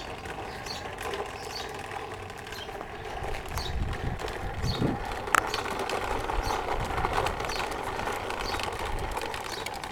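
Child's toy push lawnmower rolling over the yard, its mechanism clicking and rattling steadily as it is pushed, with one sharper click about five seconds in.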